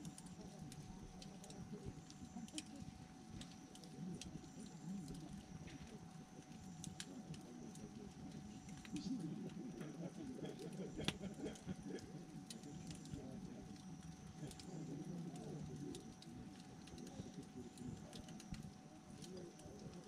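Wood campfire burning, its flames making a low flutter that swells and eases, with scattered small pops and crackles from the logs.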